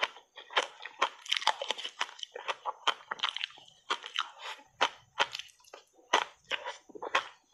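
Crunching and chewing of a mouthful of shaved ice, heard close up: a fast, irregular run of sharp, crisp crunches, bite after bite.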